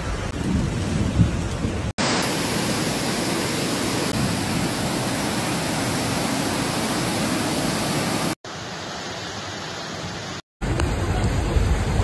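Rushing floodwater and heavy rain, a steady noise of running water. It cuts off abruptly and changes character a few times, growing quieter for a couple of seconds before coming back.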